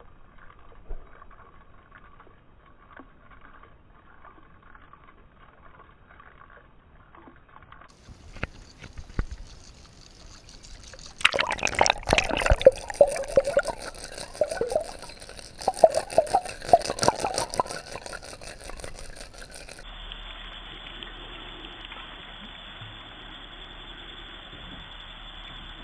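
Water splashing and churning at the surface during topwater bass fishing, loud and irregular through the middle, then a steady hiss near the end.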